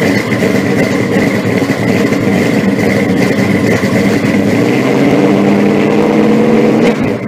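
A loud engine running steadily, a dense rumble with a thin high whine over it, dropping a little near the end.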